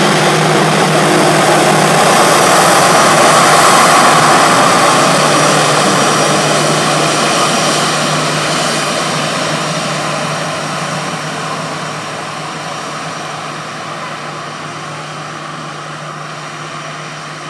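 Airbus A321 airliner's jet engines running at taxi power as it rolls past close by, with a steady low hum under the roar. Loudest about four seconds in, then fading steadily as the aircraft moves away.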